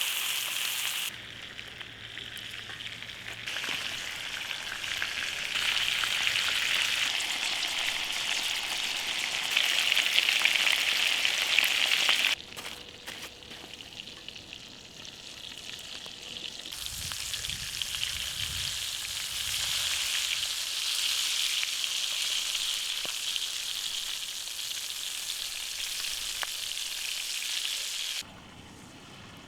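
Ribeye steak sizzling as it sears over a campfire, a dense crackling hiss. It comes in several stretches joined by abrupt cuts, some louder and some softer.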